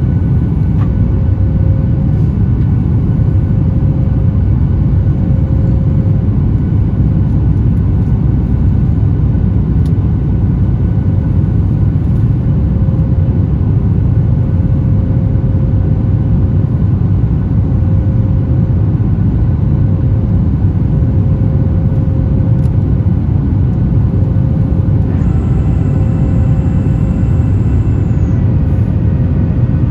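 Boeing 737 MAX 8's CFM LEAP-1B jet engines during takeoff, a loud, steady rumble with a faint short tone repeating every second or two. A higher whine of several steady tones joins for about three seconds near the end.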